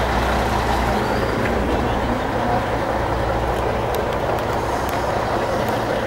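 Tour coach's engine idling at close range, a steady low hum with no change in pitch.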